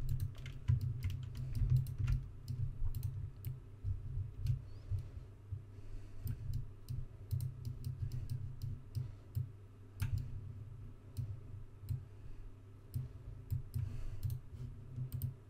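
Computer keyboard keys and mouse buttons clicking at irregular intervals over a low rumble.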